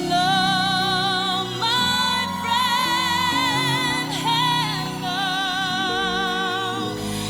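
Rock band music with a lead line of long, wavering held notes that glide from one pitch to the next.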